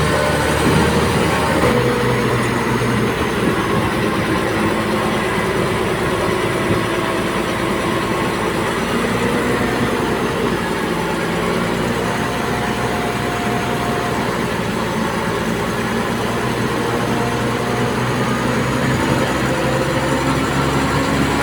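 Diesel engine of a crawler bulldozer running steadily as it works.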